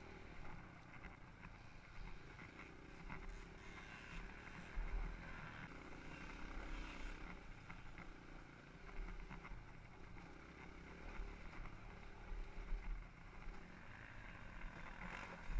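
Dirt bike engine running, its level rising and falling, under gusty low wind rumble.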